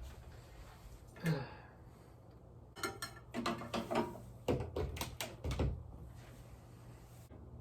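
A short sound falling in pitch about a second in, then a quick run of knocks and clunks, like objects being handled and set down, over a low steady hum.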